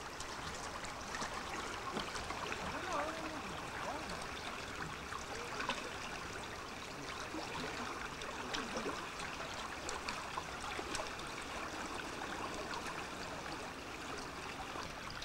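A small river's water running steadily, an even rushing and rippling.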